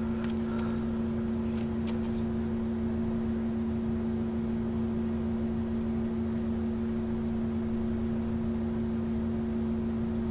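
A steady machine hum with a low drone that does not change, with a few faint light ticks in the first couple of seconds.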